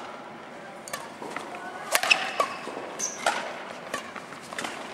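Badminton doubles rally: sharp cracks of rackets hitting a shuttlecock about once a second, the loudest about two seconds in, with short squeaks of court shoes between hits.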